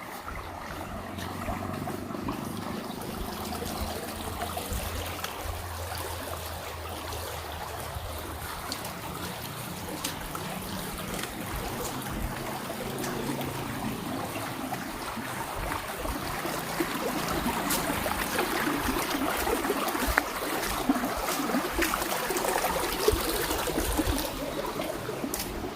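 River water rushing, growing louder over the second half. A low steady hum sits under the water in the first half.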